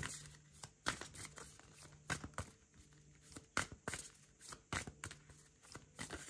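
Tarot cards being handled and shuffled: faint, irregular clicks and rustles of card stock.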